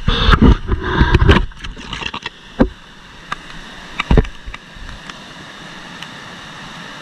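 Handling knocks and bumps of a GoPro in its protective case as it is picked up, loudest in the first second and a half, with two more single knocks a little later. Then the steady rushing of the McDonald Falls whitewater, muffled by the camera's case.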